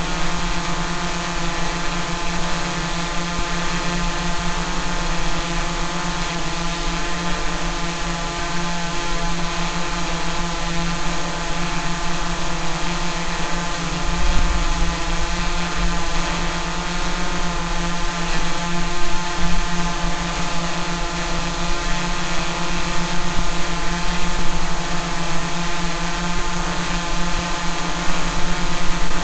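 Quadcopter drone's motors and propellers buzzing at a steady pitch, with a brief low rumble about halfway through.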